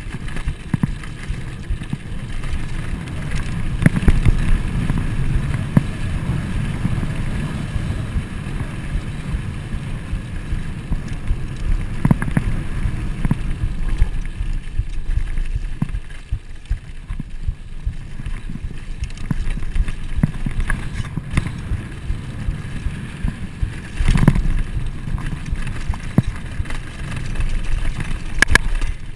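Trek Fuel EX full-suspension mountain bike rolling fast down a dirt trail, heard from a handlebar-mounted camera: a steady low rumble of wind on the microphone and tyres on dirt, with the bike and mount rattling and knocking over bumps, a few knocks sharper than the rest.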